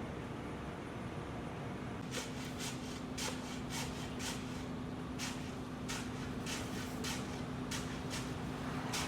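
Steady hum of a concrete pump truck's engine; about two seconds in, a steady drone note joins it. Over this comes a run of quick broom strokes sweeping the concrete floor, about two a second.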